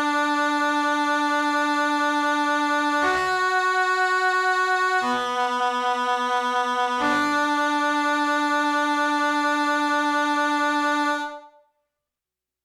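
Isolated keyboard part from a synth-pop song playing sustained chords, changing about three times. The last chord is held for about four seconds and dies away about eleven seconds in.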